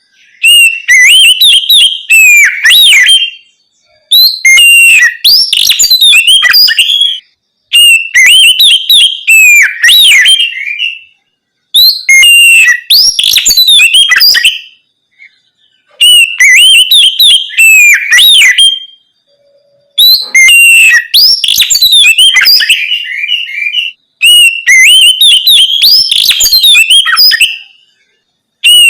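Oriental magpie-robin (kacer) singing loud, varied whistled song in the clear, open 'ngeplong' style. It comes in phrases of two to three seconds, each made of quick rising and falling notes, with short pauses between them.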